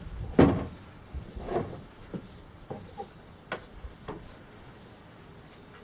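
A series of hard knocks and clunks as parts are handled and set in place. The loudest comes about half a second in, followed by about five lighter knocks.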